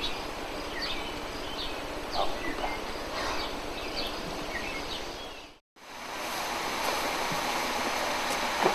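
Outdoor ambience: a steady hiss with scattered short bird chirps. It drops out to silence for a moment about five and a half seconds in, then comes back as a steadier, even hiss, with a single sharp click near the end.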